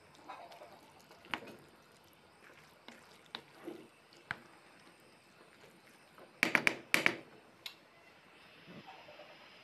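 Scattered light clicks and knocks over a faint hiss, with a quick run of about five loud, sharp clicks about two-thirds of the way through.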